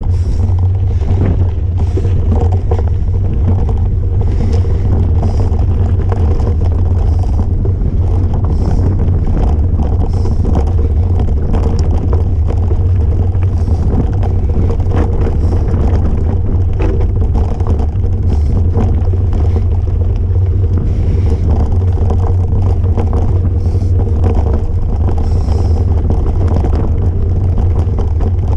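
Mountain bike ridden over a rough dirt single track, heard through a handlebar-mounted action camera: a loud, steady low rumble of trail vibration and wind on the microphone, with frequent short knocks and rattles as the bike goes over bumps.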